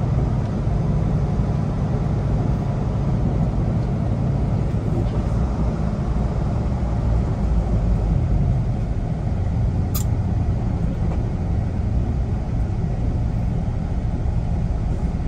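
Kenworth T680 semi-truck driving, heard from inside the cab: a steady low engine and road rumble. A single sharp click comes about ten seconds in.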